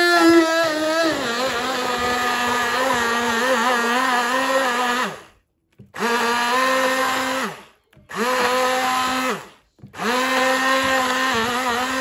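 Hand-held stick blender running in a bowl of tomato chutney, in bursts: one long run of about five seconds, then it is stopped and started again three times, its pitch sliding down each time it is switched off. The whine settles a little lower in pitch about a second in.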